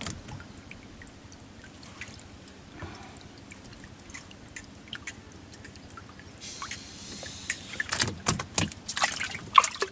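Wet fish trap being handled on a bamboo platform: scattered taps, clicks and drips, with a brief hiss and then a busier run of knocks and rattles in the last two seconds or so.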